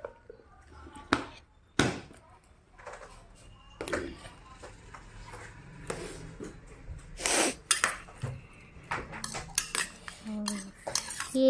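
Spoon clinking and scraping in a bowl as bhel (puffed-rice mixture with broken papad, onion and tomato) is stirred: irregular clicks and knocks, with a longer scrape a little past the middle.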